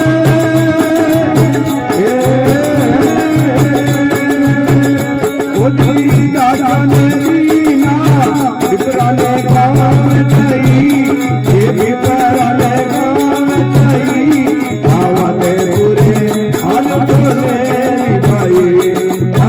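Loud folk-style devotional song to Balaji: singing and melody over a steady, repeating low beat.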